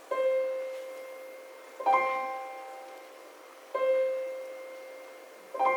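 Piano striking the same chord four times, about two seconds apart, each chord left to ring and die away.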